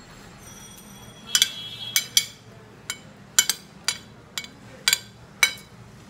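Steel spoon clinking against a plate as rice is scooped up, about ten sharp clinks from about a second in, with a brief scrape at the first.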